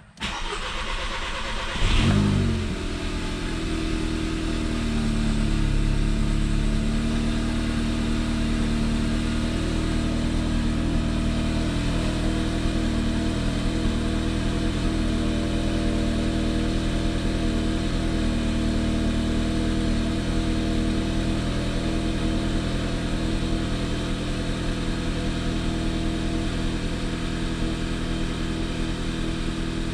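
2011 Audi TT 2.0 TFSI turbocharged four-cylinder on a cold start. It flares loudly about two seconds in, then settles into a steady, smooth cold fast idle with no misfire, now that the cylinder-head partition plates are back in.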